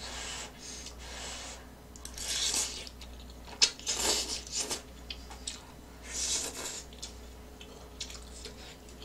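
A person slurping hot ramen noodles in about five short hissing bursts, with a few light clicks of chopsticks and spoon on a metal pan in between.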